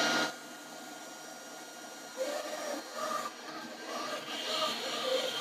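Robot vacuum cleaner: a loud steady motor noise cuts off about a third of a second in, leaving a quieter steady whir with short intermittent mechanical tones from about two seconds in.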